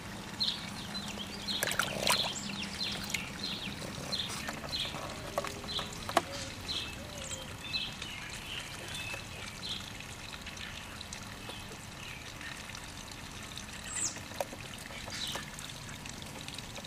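Water trickling and splashing in a koi pond as a Boston Terrier snaps and laps at the surface for floating fish food. Short high chirps repeat two or three times a second through the first half, with a few clicks and knocks.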